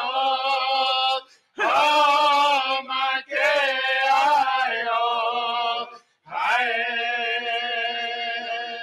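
Native American drum group singing: several men's voices in long held phrases, with short breaks between them.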